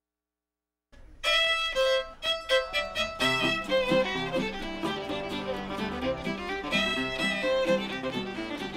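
Silence for about a second, then a fiddle starts a western swing tune in short bowed notes. Guitar chords join underneath about three seconds in.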